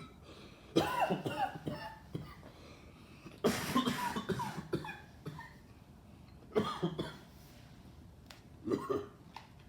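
A man coughing in four separate bouts, the loudest about three and a half seconds in, after a hit of cannabis smoke.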